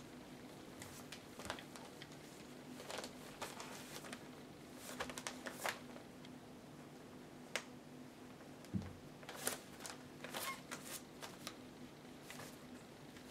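Puppies moving about on newspaper in a whelping box: scattered rustles of paper and small scratches and clicks from their claws and paws, irregular and brief, over a faint steady hum.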